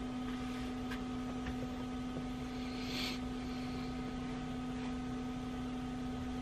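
A steady electrical or mechanical hum, one low tone with a few fainter higher tones over a light hiss, heard in a small cabin. A brief soft rush of hiss comes about three seconds in.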